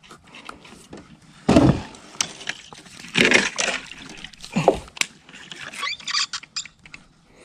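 Water splashing and sloshing beside a small fishing boat, in several uneven bursts with knocks between them.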